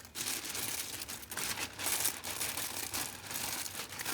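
Crinkling of a squishy toy's plastic packaging as it is handled, in irregular bursts.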